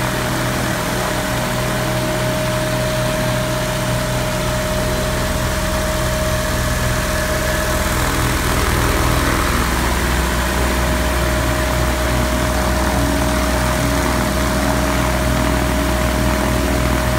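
Viking 130 four-cylinder geared aircraft engine idling steadily on its first start, run with the propeller off, with a steady whine over the engine note.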